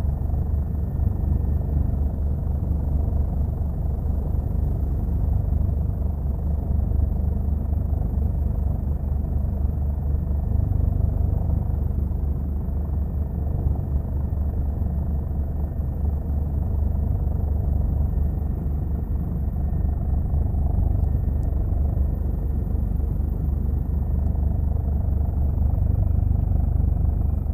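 Helicopter rotor and engine noise heard from inside the cabin: a steady, loud, low drone with a fast, even pulsing.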